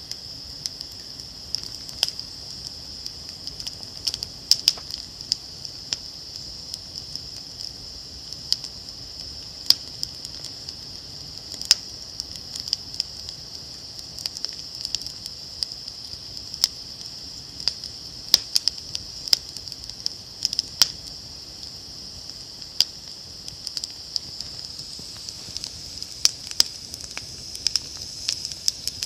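Wood fire burning in a portable campfire stand, crackling with irregular sharp pops over a steady high-pitched hiss.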